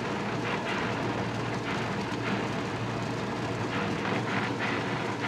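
Steady hum of a soybean processing machine running, with a hiss that swells now and then as crumbly soybean pulp pours down onto a heap.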